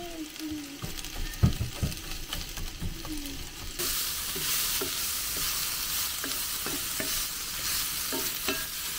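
Sliced peppers, onion and courgette frying in a cast-iron skillet, stirred with a wooden spatula. First come scattered knocks and scrapes of the spatula on the pan. About four seconds in a steady, louder sizzle comes in, with the clicks of stirring on top.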